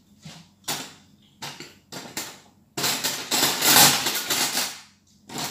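Kitchen handling noises: a few sharp knocks and clicks, then about two seconds of loud rustling, scraping noise starting just under three seconds in.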